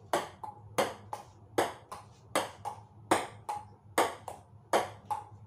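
Table tennis rally: the ball clicks off paddle and table in quick pairs, one pair about every three-quarters of a second, in a steady, even rhythm.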